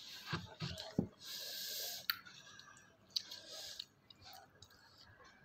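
Quiet eating of noodles: a few light clicks of wooden chopsticks against bowls, chewing and breathing, with a short breathy hiss about a second and a half in.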